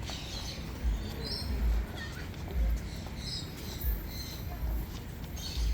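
Birds chirping in short high calls over a steady rhythm of low thumps, roughly one a second, like the footfalls of someone walking with the camera.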